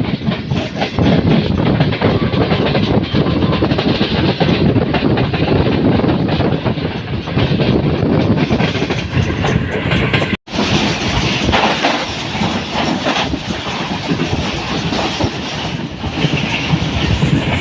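Passenger train running along the track, its wheels clattering over the rail joints with a steady rumble. The sound breaks off for a split second about ten seconds in, then carries on.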